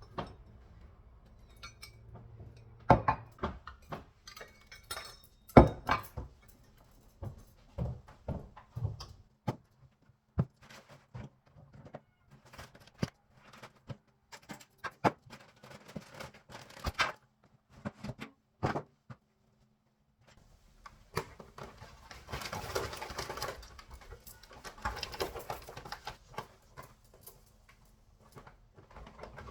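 Kitchen work sounds: scattered clicks and knocks of utensils and containers being handled. After a short silence about two-thirds through come stretches of rustling noise.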